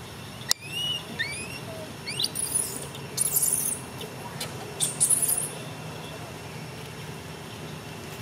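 A small animal's short, high squeaky chirps, several in quick succession after a sharp click about half a second in. Two bursts of crackly rustling follow.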